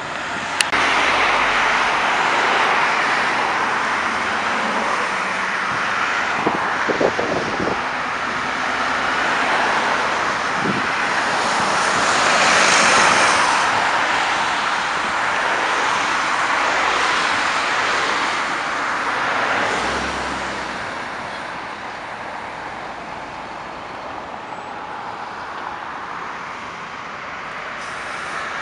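Road traffic passing: a steady rush of tyre and engine noise from cars, trucks and buses that swells and fades as vehicles go by, loudest a little before halfway when a coach bus passes. A sharp click just under a second in.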